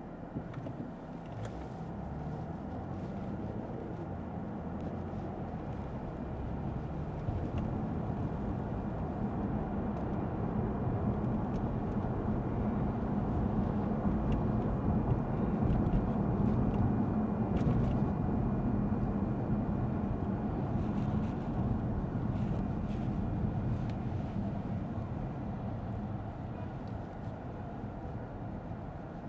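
A 2022 Lexus ES 350 F Sport's V6 engine and tyre noise on a wet road, heard from inside the cabin while driving. The steady low rumble grows louder toward the middle and then eases off.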